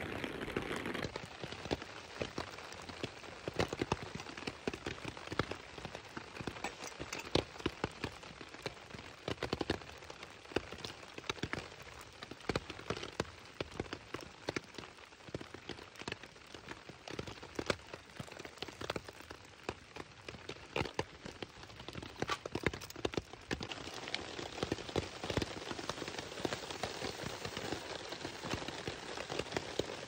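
Rain falling, with many irregular drops ticking on a nearby surface over a faint steady hiss.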